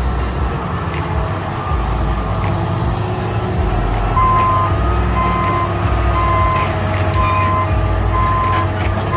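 Heavy diesel engine of an excavator running steadily, joined about four seconds in by a backup alarm beeping about once a second.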